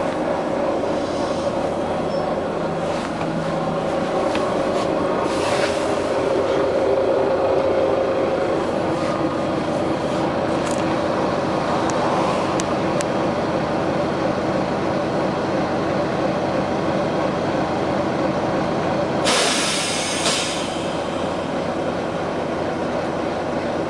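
Volvo B9TL double-decker bus's six-cylinder diesel running steadily. A short hiss of air comes about five seconds in, and a louder, sharper air hiss runs for about a second near the end.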